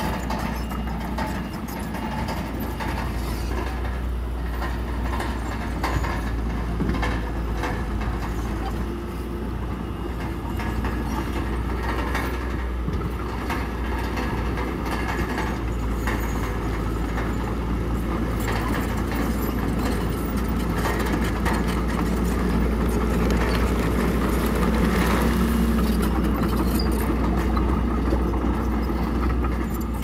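Small crawler bulldozer's diesel engine running steadily under load, with the clank of its steel tracks and stones scraping under the blade as it pushes broken rock. The sound grows louder over the last third as the machine comes closer.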